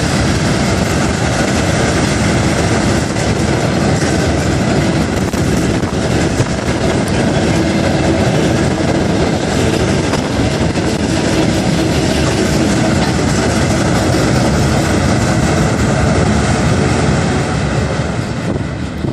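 Railway wagons rolling past over a bridge: a steady rumble with wheel clatter on the rails, easing off near the end.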